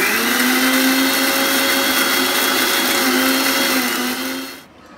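Preethi mixer grinder running with a small steel jar, grinding coconut to extract coconut milk. The motor spins up at the start, runs steadily and loudly, and switches off about four and a half seconds in.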